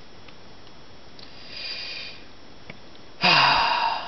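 A person breathes out hard through the nose in one loud snort-like exhale with a little voice in it, about three seconds in, after a fainter sniffing breath. Faint clicks come from a plastic action figure being handled.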